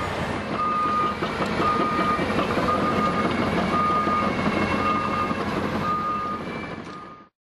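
Cat 568 forest machine tracking across the ground, its diesel engine running under a travel alarm that beeps about once a second, some seven times. The sound fades and cuts off near the end.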